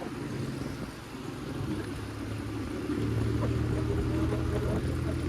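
TVS Apache RTR 180's single-cylinder engine running steadily as the motorcycle is ridden, its low hum growing louder about three seconds in.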